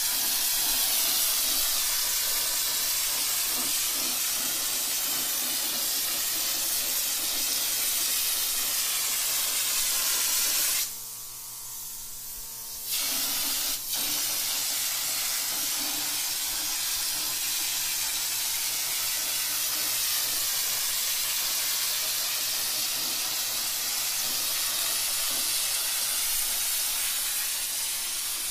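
Hopper texture gun spraying popcorn texture onto a ceiling: a steady loud hiss of compressed air and texture leaving the nozzle. The spray cuts off for about two seconds around eleven seconds in, then starts again.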